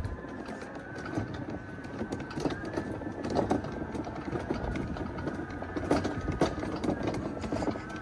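Ryobi 48V battery riding lawn mower driving along, its electric drive motors giving a steady high whine, with a few knocks and rattles from the machine.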